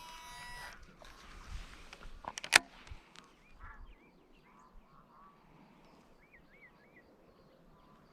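Faint bird calls: many short, curling, rising-and-falling calls in a quiet outdoor background. A single loud sharp click comes about two and a half seconds in.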